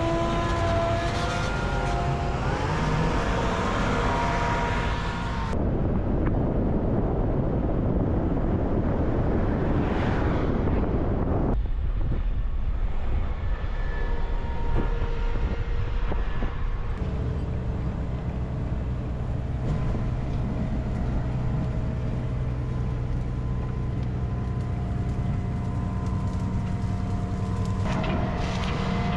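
Heavy harvest machinery running steadily. The engine and machine sound changes abruptly several times, about every five or six seconds, as shots switch between machines or positions.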